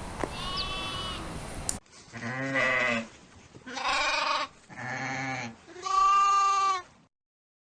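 Sheep bleating: one faint bleat, then four louder bleats in close succession, each about a second long, the last the longest.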